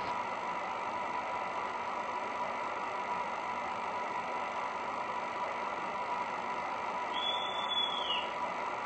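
H0-scale model train running: a steady hum and rolling noise with a faint constant tone. About seven seconds in, a brief high-pitched whistle-like tone lasts about a second and falls in pitch as it ends.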